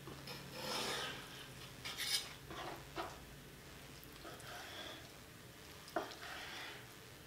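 Chef's knife cutting raw salmon on a wooden cutting board: sharp knocks of the blade on the board about two seconds in, at three seconds and at six seconds, with soft rubbing and scraping between them as the fish is sliced and pushed together.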